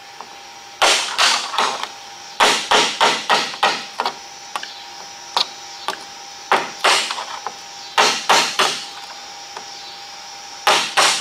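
Hammer tapping lightly on a long pry bar hooked under the lip of a drip rail molding, working the stainless trim off the roof rail. The strikes come in quick bursts of a few taps with short pauses between.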